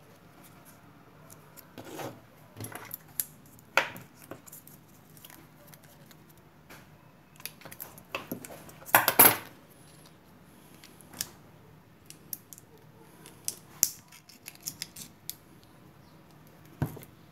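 Scissors snipping and stiff polyester insulating film crinkling as it is folded and handled: scattered clicks and short rustles, the loudest a half-second rustle about nine seconds in.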